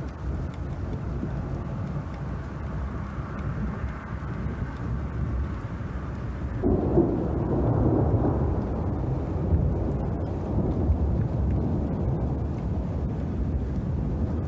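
Low rumble of thunder that swells suddenly about halfway through and stays louder.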